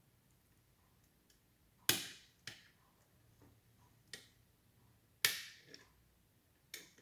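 Sharp metal clicks from lock-picking tools working inside an all-brass lever padlock. There are about six at irregular spacing, with the two loudest around two and five seconds in.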